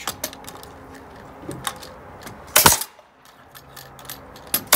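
Pneumatic nailer firing nails through a steel joist hanger into the deck joist: one sharp bang a little past halfway and another at the very end, with light metallic clicks between.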